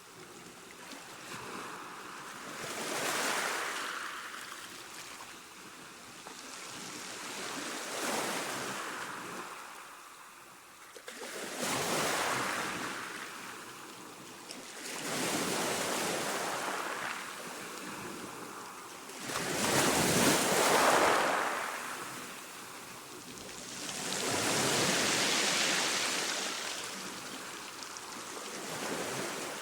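Calm ocean waves washing in, in slow surges that rise and fall about every four to five seconds, the loudest about two-thirds of the way through.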